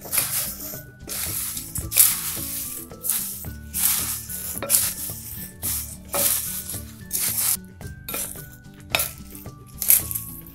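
Puffed rice bhel puri mix tossed with a wooden spatula in a glass bowl: dry rustling strokes, roughly one a second.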